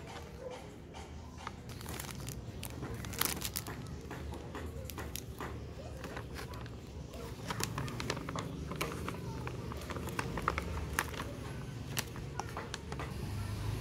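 Crinkling plastic packaging with scattered small clicks and taps, as the containers of a self-heating rice meal are handled.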